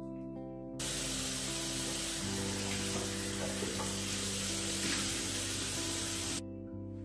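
Bathroom tap running into the sink, a steady hiss of water that starts about a second in and cuts off sharply near the end. Background music plays underneath.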